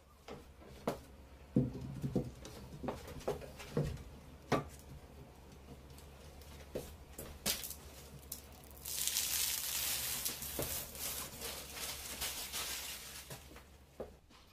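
Scattered clicks and knocks of handling, then, about nine seconds in, protective plastic film being peeled off a glass table top: a crackling, tearing hiss lasting about four seconds and fading out.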